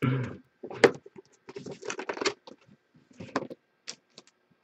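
Cardboard trading-card box and its foil-wrapped packs being handled: irregular scrapes, rustles and light taps as the lid is opened and the packs in the tray are touched.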